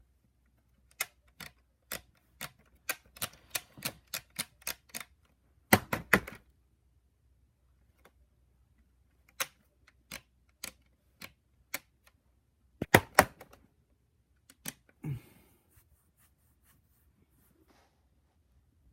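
Irregular plastic clicks and clacks from a ViewMaster toy projector being handled and worked: a quick run of clicks, then scattered single ones with a few louder clusters. The projector won't run because its batteries are dying.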